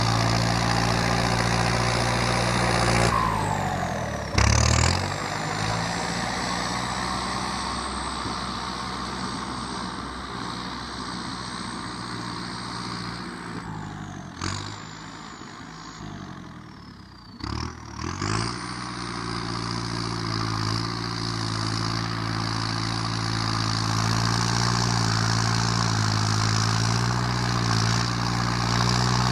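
Kubota tractor's diesel engine fitted with a loud aftermarket exhaust, running under load as it works soil. Its revs drop a few seconds in with a brief loud burst and drop again just past halfway. The engine grows fainter as the tractor moves off, then louder and steady again near the end as it comes back.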